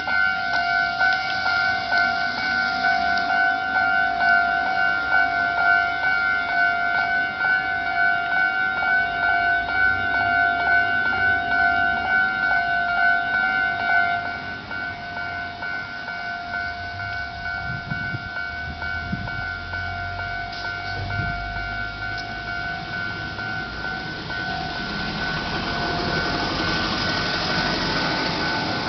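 Japanese railway level-crossing warning bell ringing, a fast repeating electronic ding on two steady pitches. It drops in loudness about halfway through, and a rushing noise builds near the end.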